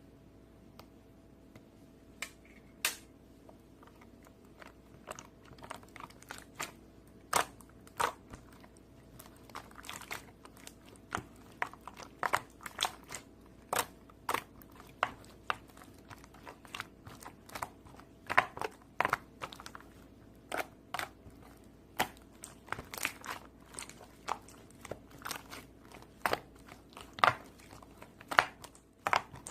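Crunchy slime being squeezed and pressed by hand, giving irregular sharp crackling pops. The pops are sparse at first and come about one or two a second from around six seconds in.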